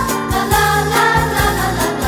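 Background music: a melodic track over held bass notes.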